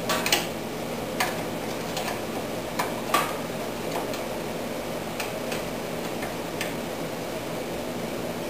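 Irregular metallic clicks and taps, loudest in the first few seconds, as long-nose vise grips work on the governor tab of a 16 HP PowerMax snowblower engine that is stopped, bending it to lower the engine speed. A steady hum runs underneath.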